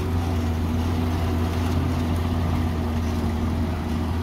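CNG-fuelled tipper truck's engine running steadily at low speed as the truck crawls past close by.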